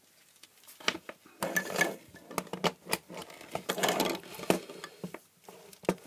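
Hard plastic items being handled and set down: a busy run of light clicks, knocks and clatter with some rustling as a plug-in power meter is fetched onto the bench.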